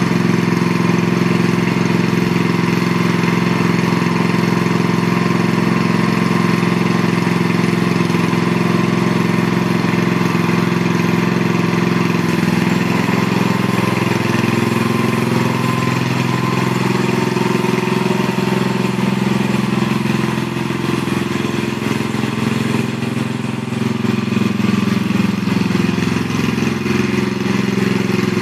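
Engine of a Snapper rear-engine riding mower running, steady at first. From about halfway its note wavers and shifts as the mower is driven off across the lawn.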